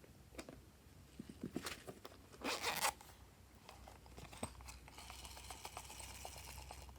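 Handling sounds from slime-making: scattered small clicks, a loud rasping burst about two and a half seconds in, then a soft steady crackling hiss with small clicks near the end.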